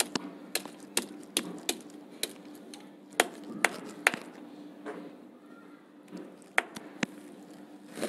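Fresh ginger being crushed with a hard object: irregular sharp knocks and clicks, sometimes two close together, with pauses of up to about two seconds.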